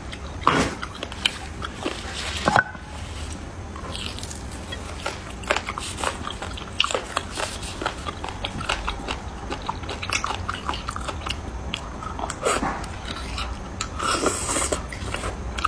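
Close-miked eating sounds of beef bone marrow being sucked and slurped from braised bones: wet smacks, mouth clicks and chewing, in scattered short bursts, the sharpest a couple of times in the first few seconds.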